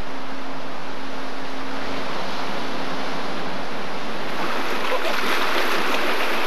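Steady rushing outdoor noise, with a faint steady hum that fades out about two seconds in; the rushing grows rougher and a little louder about four and a half seconds in.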